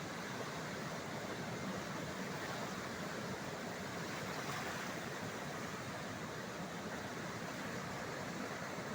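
Athirappilly waterfall in flood: a steady, unbroken rush of heavy falling and flowing water.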